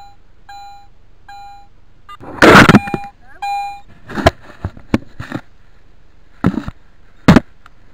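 Garrett metal detector giving short, identical mid-pitched beeps, three in the first second and a half and one more about three and a half seconds in. Loud irregular thumps and rumbles on the microphone come between and after them, the loudest about two and a half seconds in.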